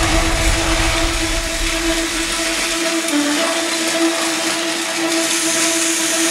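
Battery-powered Thomas TrackMaster toy train motors whirring steadily as the engines run on plastic track, a constant whine over a rattling hiss. The pitch dips briefly about three seconds in.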